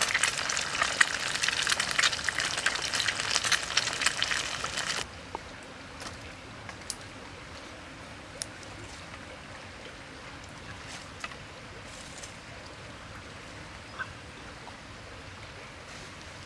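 Eggs sizzling in hot oil in a frying pan on campfire embers: a loud, dense crackling sizzle that cuts off abruptly about five seconds in. The rest is a quiet background with a few faint scattered clicks.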